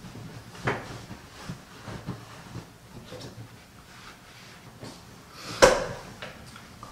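A few light knocks and clicks, with one louder knock about five and a half seconds in.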